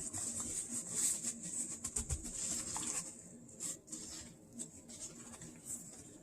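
Gloved hands tossing raw chicken strips in a dry coating of whey protein powder and seasoning: soft rustling with many light taps, busiest in the first three seconds, then scattered taps.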